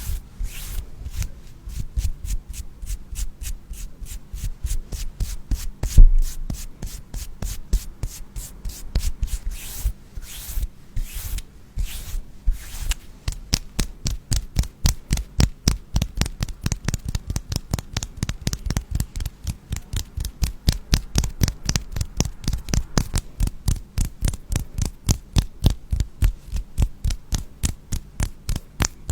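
Rapid, rhythmic rubbing or scratching strokes close to the microphone, several a second, steadier and more even in the second half, with one louder knock about six seconds in.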